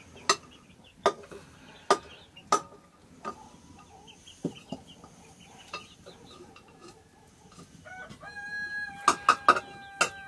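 A rooster crowing: one long held call that starts about eight seconds in, over chickens clucking. Sharp clicks and knocks come every second or so throughout.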